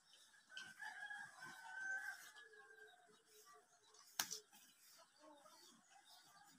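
A rooster crowing faintly for about two seconds, starting about half a second in. A single sharp click comes about four seconds in.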